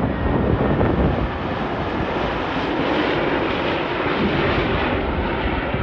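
Jet airliner's engines heard as a steady rush of noise, easing off slightly near the end.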